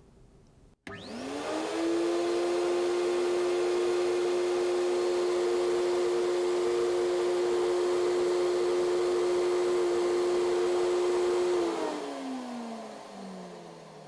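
Graco FinishPro HVLP 9.5 paint-sprayer turbine switched on about a second in, quickly spinning up to a steady whining hum, then switched off near the end and winding down with a falling pitch.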